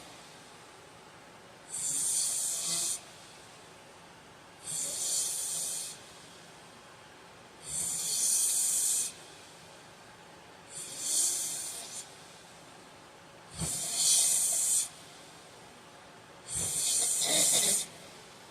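A sleeping man snoring: six airy, hissing breaths about every three seconds, each about a second and a half long, with quiet between them.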